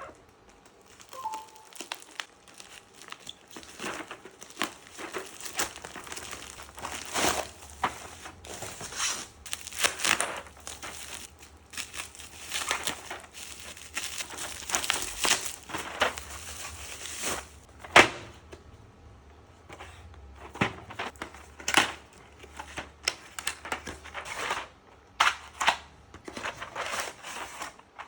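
Plastic packaging crinkling and rustling in irregular handfuls, with scattered sharp plastic clicks, as a PBT keycap set is unpacked and handled.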